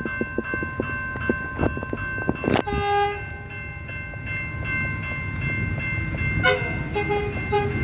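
Diesel railcar ('doodlebug') passing close by, sounding its horn in two short blasts, about three seconds in and again near the end, over a steady rumble, with a rapid run of clicks in the first two seconds.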